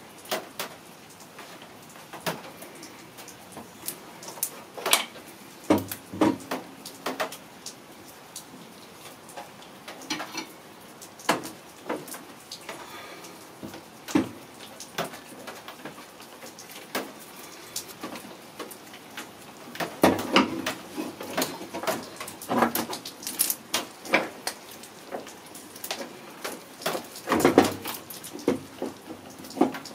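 Scattered metallic clinks and knocks of hand tools working on a car engine's accessory belts, irregular and busier in the last third.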